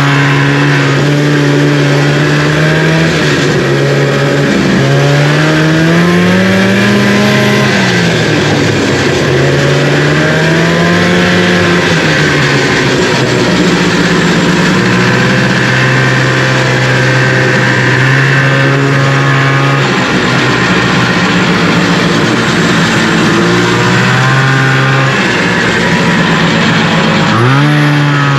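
1974 Arctic Cat Lynx snowmobile's fan-cooled 340 two-stroke engine running, its pitch rising and falling again and again as the throttle is opened and eased off.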